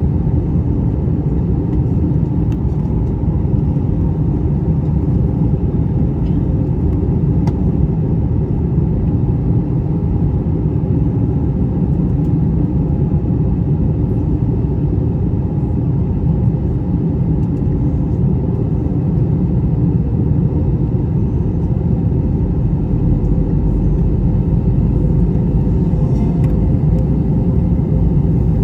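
Airbus A321-200 cabin noise in flight: the steady low rumble of the engines and airflow, with a faint steady hum above it.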